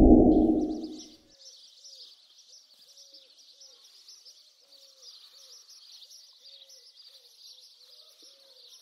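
A loud low whoosh fades out over the first second. Then a bird gives a short, low hooting note about twice a second over a steady high chirring.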